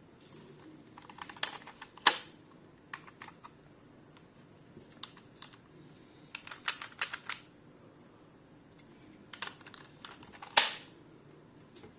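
Hard plastic clicking and snapping from a DX toy transformation device being handled: scattered clusters of small clicks, with two louder snaps, about two seconds in and near the end.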